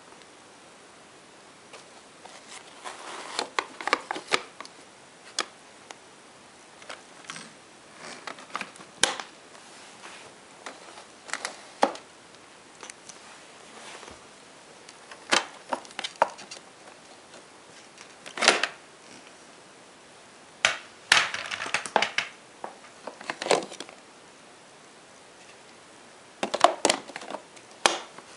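Plastic parts of an Electrolux Ultra Silencer Green vacuum cleaner being handled with the motor off: scattered clicks, knocks and short rattles, some in quick clusters.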